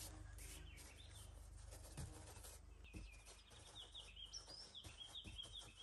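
Faint outdoor ambience: a low steady rumble with a couple of soft knocks, then from about three seconds in a small bird singing a quick run of short, high, repeated chirps.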